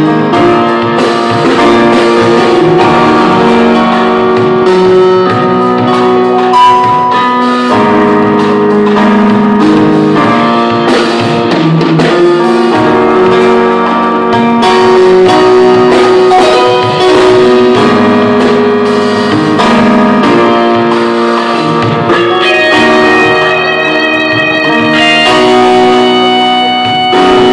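Loud, continuous instrumental music made of held notes and chords that change in steps.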